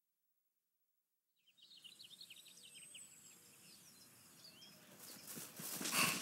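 Silence for about a second and a half, then soundtrack forest ambience fades in with birds chirping. Near the end a run of regular thumps, a little more than one a second, grows louder.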